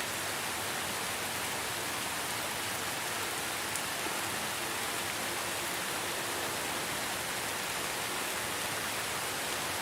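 Steady rain falling: a continuous, even hiss that holds at one level throughout.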